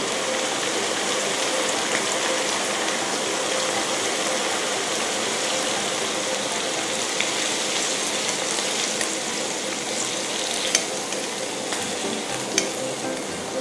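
Hot frying oil sizzling steadily as deep-fried garlic and black pepper chicken is tipped from the frying pan into a metal strainer to drain, with a couple of light clicks near the end.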